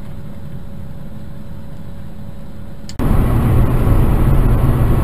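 Car cabin noise from a dashcam in a moving car: a steady low driving rumble, then about three seconds in an abrupt cut to much louder road and engine noise at speed.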